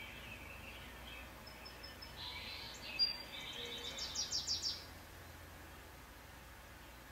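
Small songbirds chirping and calling from a bird video playing on the TV, heard through its speakers. A busy stretch of high chirps in the middle ends in a quick run of about five notes.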